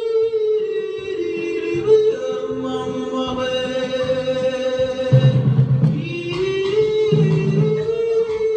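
Dance music starting abruptly: a long held melody line that bends gently in pitch, with low bass notes coming in about five seconds in.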